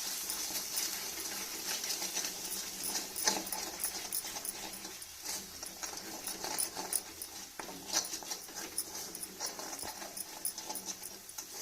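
Ginger paste with jaggery cooking in ghee in a pan on a low flame, sizzling gently, with a spoon now and then scraping and tapping the pan.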